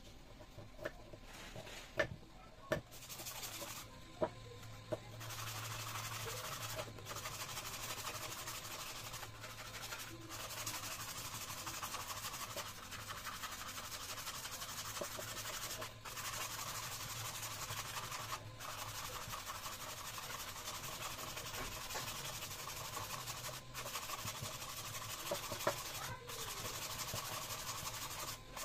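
A carved wooden pot handle being sanded by hand with sandpaper: a steady rubbing hiss that pauses briefly every few seconds between strokes. It is preceded in the first few seconds by a few sharp clicks and scrapes of a knife whittling the wood.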